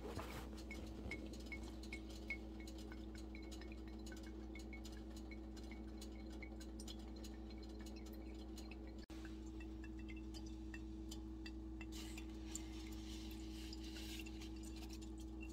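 Hot rendered lard dripping and trickling through a coffee filter into a glass Mason jar: small, faint plinks about three a second that thin out later, over a steady low hum.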